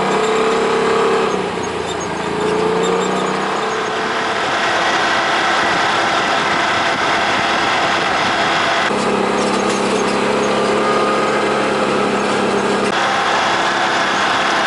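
Off-road vehicle's engine running steadily under way on a dirt trail, with road and tyre noise over it. The tone shifts abruptly about a second in and twice more later, where the footage is cut.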